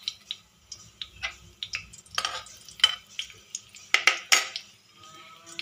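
Cumin seeds and bay leaves crackling in hot oil in a kadhai as the spices are tempered: irregular sharp pops, a few louder ones around the middle.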